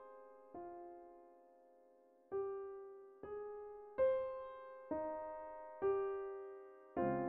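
Gentle piano background music: a slow melody of single notes and chords, each struck and left to fade, about seven in all.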